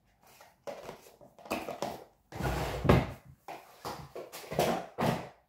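Small cardboard box being handled and closed: irregular knocks, scrapes and rustles of the lid and flaps, with a heavier thump about two and a half seconds in.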